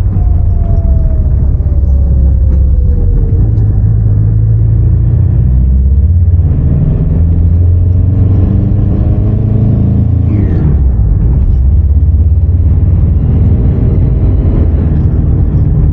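Mitsubishi L200's 2.5-litre diesel engine pulling the truck along, a loud low rumble whose pitch falls in the first few seconds, then climbs and changes about ten seconds in. The owner finds the engine underpowered and short of turbo boost.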